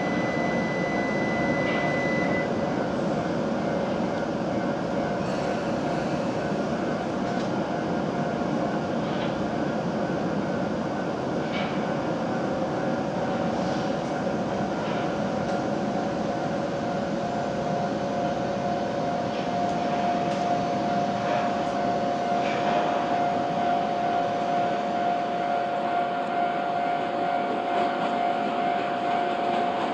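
A W7 series Shinkansen train pulling out of the station: a steady electric running hum over the rumble of wheels on rail, with two steady motor tones, the higher one growing stronger from about halfway through.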